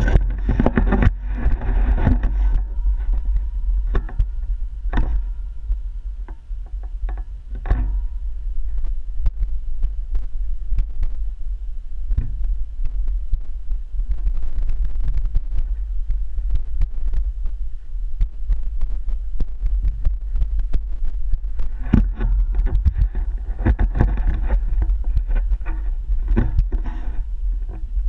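Steady low rumble of wind buffeting an action camera's microphone, broken by many sharp knocks and rattles from the camera pole being handled and swung.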